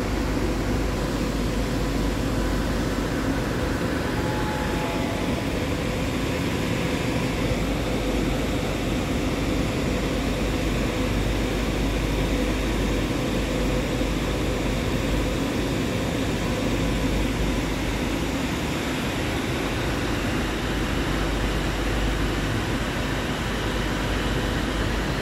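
Steady drone of industrial machinery: an even rushing noise with a faint constant hum, unchanging throughout.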